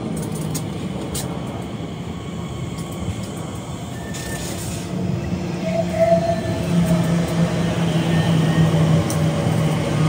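Class 345 Elizabeth line electric trains running at the platform: a steady rumble with a low electric hum that grows louder from about halfway, and a short high squeal around the middle.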